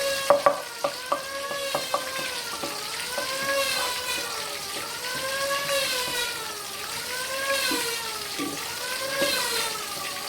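Food frying in a pan, with a quick run of clacks from a spatula against the pan in the first two seconds. A steady pitched tone wavers up and down about every two seconds throughout.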